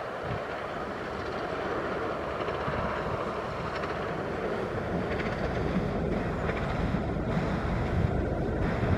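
A 15-inch-gauge miniature steam train running along the line, its sound growing slowly louder as it draws nearer, with wind buffeting the microphone near the end.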